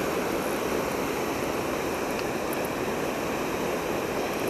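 River water rushing over rocks in a shallow riffle: a steady, even rush with no change.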